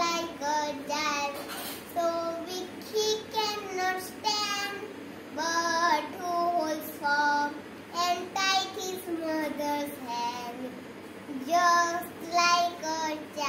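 A young boy singing a song solo and unaccompanied, in short sung phrases with brief pauses between them.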